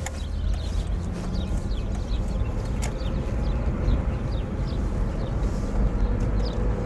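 Car driving, its engine and road rumble heard from inside the cabin, with a string of short, high, falling chirps repeating a few times a second.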